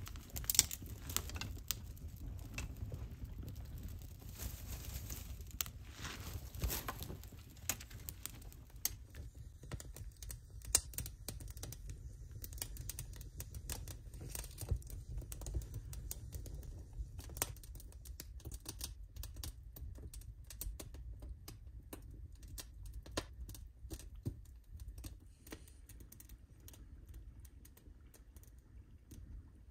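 Small campfire of dry grass and twigs crackling: irregular sharp snaps and pops, the loudest about half a second in, over a steady low rumble.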